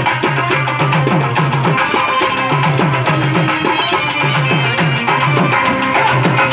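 Live traditional folk music: rapid, rhythmic hand-drum strokes that bend in pitch, under a sustained melody.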